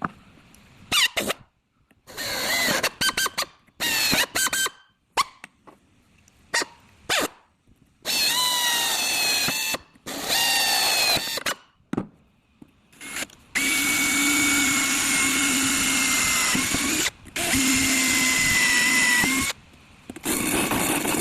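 Electric drill boring holes in a fibreglass-reinforced polyurethane profile. It starts with many short on-off bursts, then runs in longer stretches of a few seconds each, its whine dipping in pitch under load.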